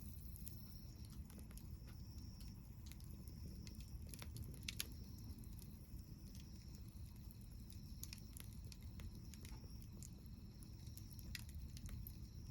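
Campfire wood crackling: scattered sharp pops and snaps over a low steady rush, the loudest pop a little under five seconds in.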